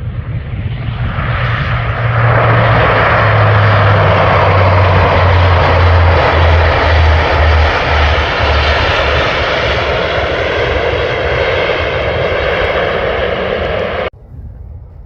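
Airliner passing close overhead, its engine noise building over the first two seconds to a loud, steady rush, with a low hum underneath sliding down in pitch as it goes by. The sound cuts off abruptly near the end.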